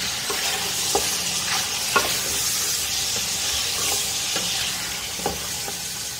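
Chunks of beef and marrow bones sizzling in hot ghee with fried onions in a large aluminium pot, stirred with a wooden spatula that knocks lightly against the pot a few times. The meat is being fried until its colour changes.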